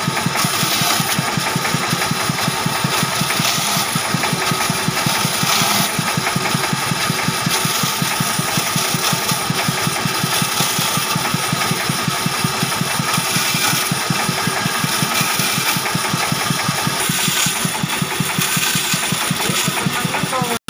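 Large band saw running steadily, its blade cutting a wooden block into thin strips, with a rapid, even pulse under the running noise.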